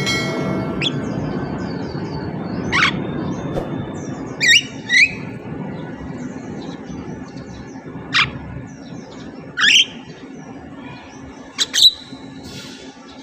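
Javan myna (jalak kebo) giving short, sharp calls, about seven at uneven intervals, some in quick pairs, over a low background rumble that fades away.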